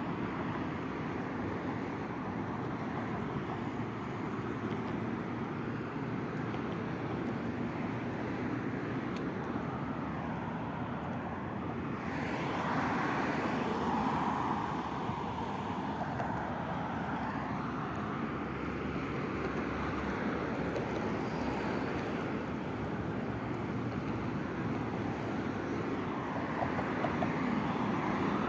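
Road traffic passing close by on a multi-lane bridge: steady tyre and engine noise that swells and fades as each car goes by, loudest about twelve to fifteen seconds in.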